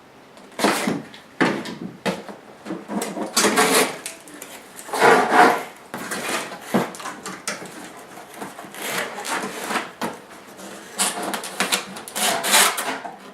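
Cardboard packaging being handled and opened: irregular scraping, rubbing and sliding of cardboard, some strokes louder than others.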